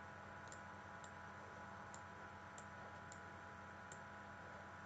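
About five faint, sharp computer mouse clicks at irregular intervals over a low steady room hum, otherwise near silence.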